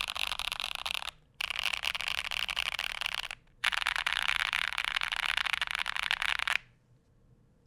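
Modded Gamakay K77 mechanical keyboard with Holy Boba tactile switches on an acrylic plate, typed rapidly along the key rows in three dense runs of key clicks, with two short pauses about one and three and a half seconds in. The typing stops about six and a half seconds in.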